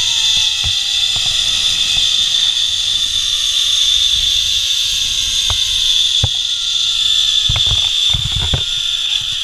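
Zipline trolley pulleys running along the steel cable: a steady high whir, with a fainter tone that slides slowly down in pitch. A low rumble of wind sits under it at first, and several sharp knocks come in the last few seconds as the landing platform nears.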